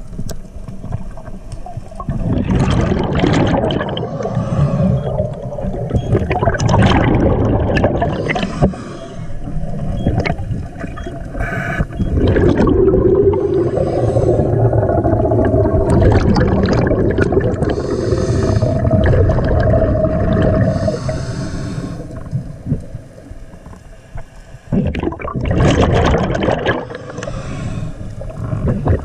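Scuba diver's breathing heard underwater: bursts of bubbles rumbling and gurgling out of the regulator's exhaust, in uneven bouts several seconds long with a short lull near the end.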